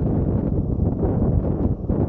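Strong gusty wind buffeting the microphone, a loud, continuous low rumble with rapid flutter.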